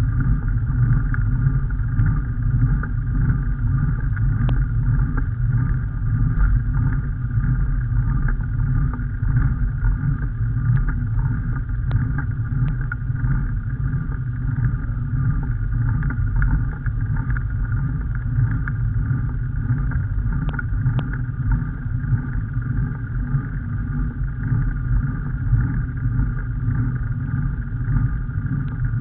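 Steady wind and road rumble picked up by an onboard camera travelling along a paved lane, with a few faint ticks.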